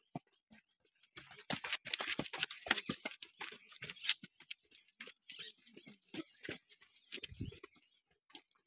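Runners' footsteps on concrete steps: a dense, irregular run of quick taps and scuffs that starts about a second in and thins out near the end.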